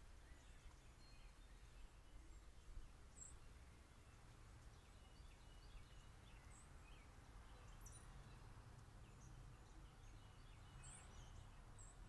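Faint outdoor ambience: a steady low rumble with scattered distant bird chirps and short calls.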